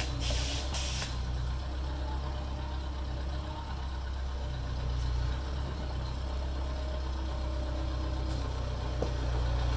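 Steady low drone of an idling engine, with short hissing bursts of air from a pneumatic huck rivet gun in the first second.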